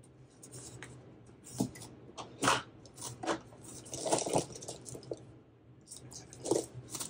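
Pens being sorted and handled: a scattered series of short clicks and crunchy rustles, a few of them louder.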